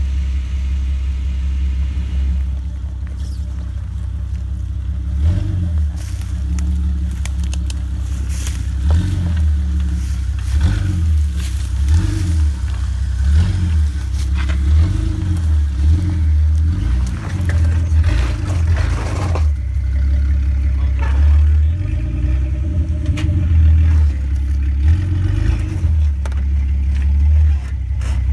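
Jeep Grand Cherokee WJ engine running at low revs while crawling over rocks, the throttle rising and falling. Scattered knocks and scrapes of the tyres and underbody on stone.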